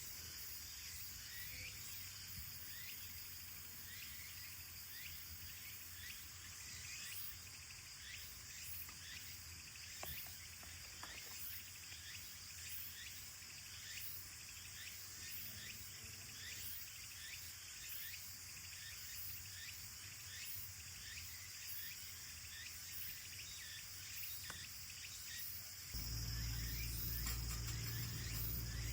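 Insects chirping in a steady high drone, with short sharp ticks repeating roughly every second. About three seconds before the end, a louder low hum comes in suddenly.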